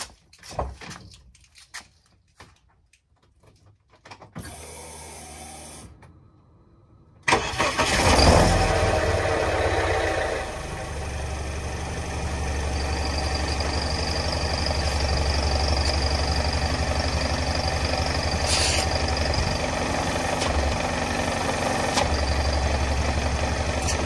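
A few light clicks, then a BMW E46's engine starts about seven seconds in, revs briefly and settles to a steady idle. Heard from beneath the car at the newly sleeved exhaust pipe, which the owner judges no longer leaks.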